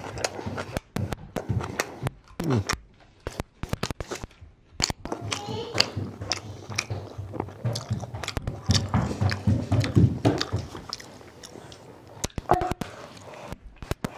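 Close-miked chewing and biting of a person eating a soft tortilla wrap filled with steak, kimchi and vegetables. It comes as a dense, uneven run of mouth clicks and smacks.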